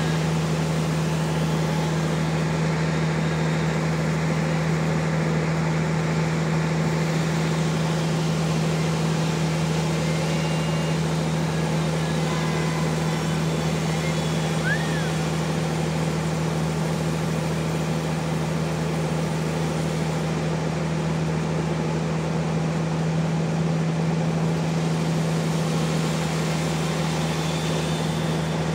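Sawmill machine running steadily with a constant low hum and an even mechanical noise that does not change.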